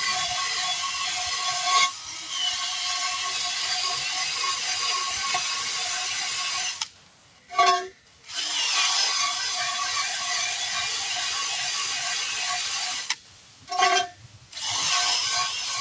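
A power tool running in long stretches of about five to six seconds, scrubbing the bead seat of a wheel rim clean after tire removal. It stops twice, each time with a quick brief blip of the trigger before running again.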